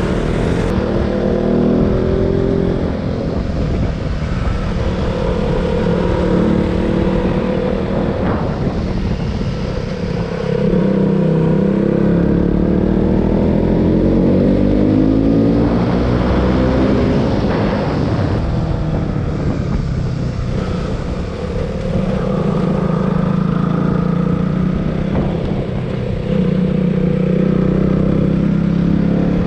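Motorcycle engine heard from the rider's seat while riding, its pitch rising and falling again and again as the throttle is opened and closed and gears are changed.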